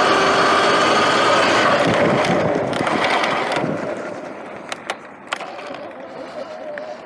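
Sur-Ron Light Bee X electric dirt bike riding over dirt: the whine of the electric motor and chain drive under wind and tyre noise, which dies down about halfway through as the bike eases off. A few sharp clicks follow, over a quieter steady hum.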